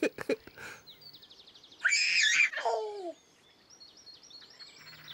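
Birds chirping in the background. About two seconds in comes a brief, louder high voice sound that falls in pitch.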